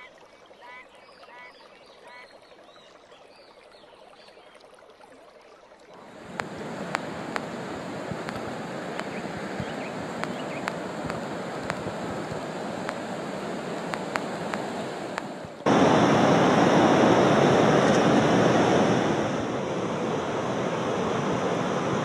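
White-water river rushing over rocks in steady rapids. It comes in about six seconds in and turns suddenly louder a little past the middle. Before that there are only faint repeated chirps.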